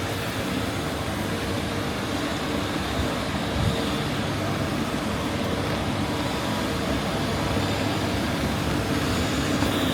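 Steady hiss of rain on a city street, with a motor vehicle's engine humming underneath and growing slowly louder.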